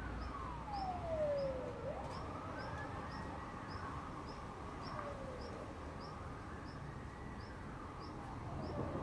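A siren wails, its pitch sliding slowly down and back up several times. A short high chirp repeats about twice a second, and there is a low steady background rumble.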